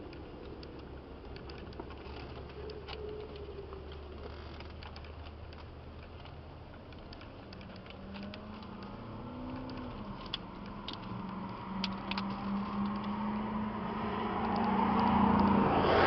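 Scattered light clicks of a hand wrench turning the mounting bolts of a new mechanical fuel pump. Under them is a steady motor-vehicle engine hum that starts about halfway through and swells louder near the end.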